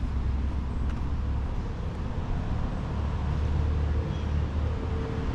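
Steady low outdoor rumble of background ambience, with a faint short high chirp about four seconds in.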